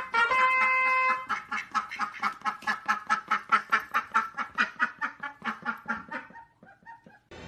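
A few brass notes of background music, then a duck quacking in a fast run of calls, about four or five a second, which fade out near the end.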